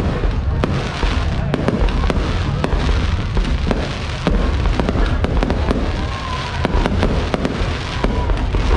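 A dense run of sharp pops and crackles over a continuous low rumble.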